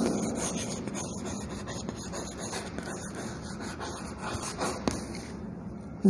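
Chalk scraping and tapping on a chalkboard as words are written, with a few sharp taps between about four and five seconds in.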